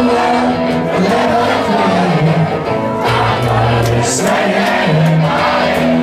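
A live rock band playing loudly, heard from within the audience, with many voices in the crowd singing along.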